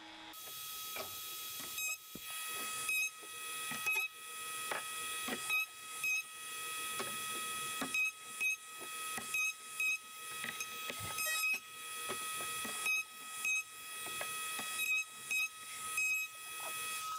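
A hand rubbing along the edges of CNC-cut MDO plywood legs in repeated strokes, a bit more than one a second, each swish swelling and then cutting off, brushing away the fuzz that the upcut end mill left on the edges. A steady high hum runs underneath.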